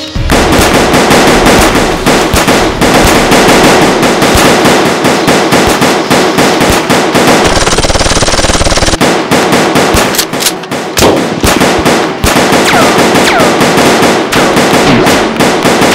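Sustained rapid automatic gunfire, bursts running almost without break, as an action sound effect. A few falling whistles, like ricochets, come near the end.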